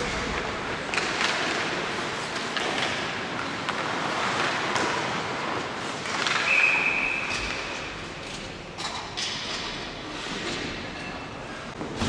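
Ice hockey rink sounds: sticks and puck clacking on the ice and boards over a murmur of crowd noise. About halfway through, a referee's whistle blows once, a steady high note about a second long, stopping play.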